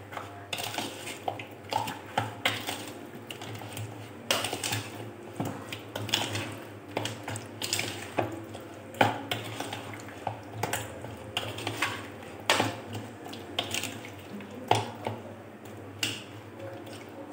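A spoon stirring chicken pieces through a yogurt-and-spice marinade in a glass bowl, with irregular clinks and scrapes as the spoon knocks and drags against the glass.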